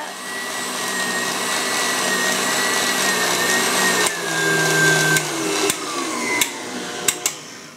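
KitchenAid Artisan stand mixer running with its wire whip beating a thin egg-white batter in a glass bowl, its motor whining steadily. The pitch drops about four seconds in and then slides lower as the mixer is turned down and switched off. A few sharp clicks come near the end.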